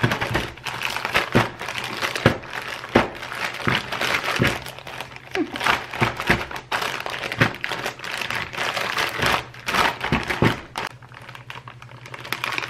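Plastic zip-top freezer bag crinkling and rustling in quick irregular crackles as hands pull it open and press its zipper shut, the filled bag shifting under the fingers.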